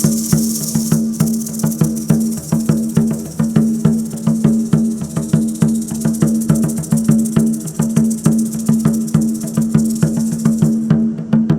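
Music in the style of ancient Mexican sound: fast, even wooden percussion strikes over a steady low drone, with a high rattling hiss that stops near the end.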